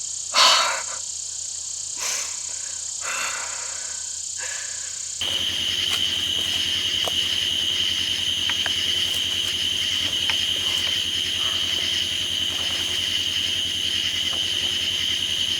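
Night insect chorus: a steady, high-pitched calling that holds unbroken, loudest from about five seconds in. Before that, a few brief rustling sounds, the loudest about half a second in.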